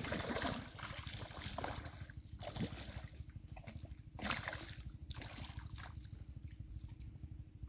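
Hooked fish thrashing and splashing at the water surface in several separate bursts, the loudest about four seconds in, over a steady low rumble.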